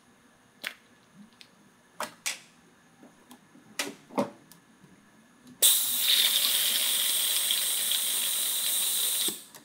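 A few light clicks, then a pneumatic vacuum brake bleeder hissing steadily for nearly four seconds as its trigger is held, drawing brake fluid out through the bleeder screw to drain the brake system. The hiss starts a little past halfway and cuts off suddenly near the end.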